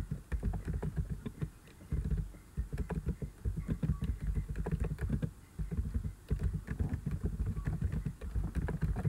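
Typing on a computer keyboard: quick runs of keystrokes with brief pauses between words.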